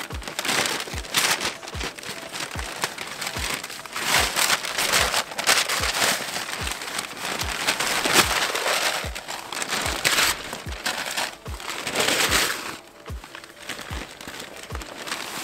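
Thick brown paper packaging being torn, crumpled and pulled off an inflatable paddleboard, with a dense irregular crackling and rustling throughout that eases off near the end.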